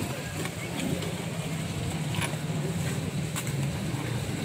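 A steady low engine hum, with a few faint light clicks.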